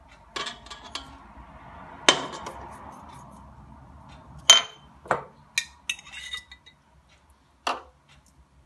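A metal spoon and a plate clinking and tapping against the stainless-steel bowl of a stand mixer as salt and a spoonful of ingredient are added. Several sharp, ringing clinks, the loudest about two seconds and four and a half seconds in.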